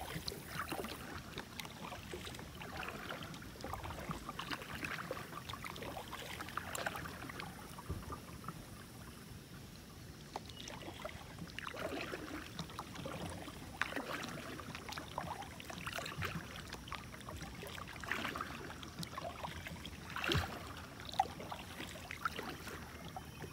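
Kayak paddle dipping into shallow, weedy water in irregular strokes about every one to two seconds, with splashes and drips between them.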